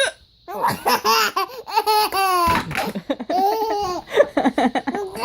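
A single short hiccup right at the start, then a baby laughing in repeated high-pitched bursts.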